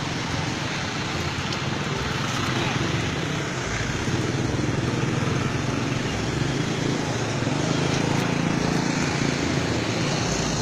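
Roadside traffic noise: motorcycle and vehicle engines running steadily close by, with people talking in the background.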